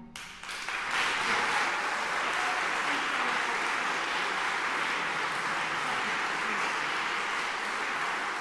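Audience applauding at the end of an aria, the clapping rising within about a second of the last note and then holding steady.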